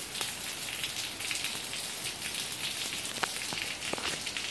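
Heavy rain pouring onto a paved driveway and street: a steady hiss, with a few sharper drip ticks near the end.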